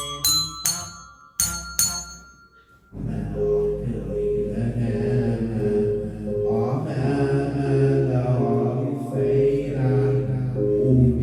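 A few struck, ringing bell-like notes, then from about three seconds in music starts: a steady low drone, a repeating pulsed note and voices in chant-like singing.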